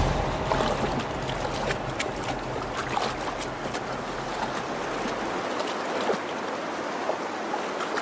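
Shallow salmon creek water running and splashing, with many small splashes throughout.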